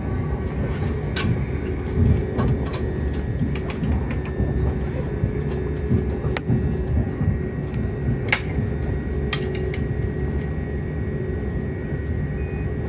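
Electric train running at speed, heard from inside the carriage: a steady low rumble with a constant hum and a thin whine, and a few sharp clicks.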